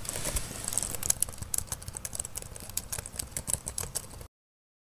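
Fast typing on a laptop keyboard: a quick, irregular run of key clicks that cuts off suddenly near the end.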